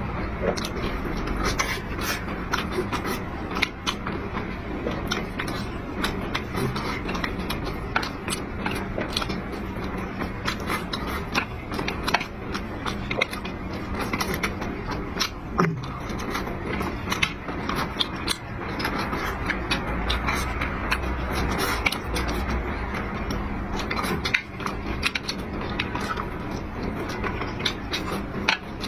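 Dishes and utensils clattering and scraping, with many sharp clinks over steady background chatter and a busy eatery hum.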